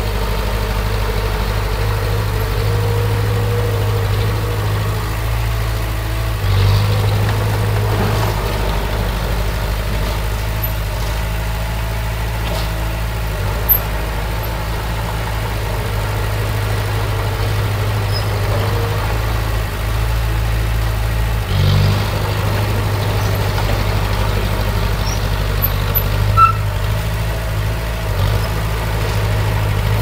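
Diesel engine of earthmoving machinery running steadily, rising briefly about a fifth of the way in and again about two-thirds through as it takes load. Two short sharp knocks come about halfway and near the end.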